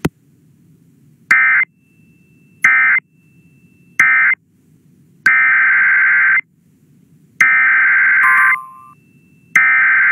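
Emergency Alert System SAME digital data bursts: three short end-of-message squawks about a second apart, then three longer header squawks, the code that opens the next tornado warning.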